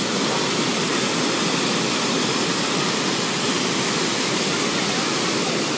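Waterfall pouring into a rocky pool below, a steady, loud rush of falling water.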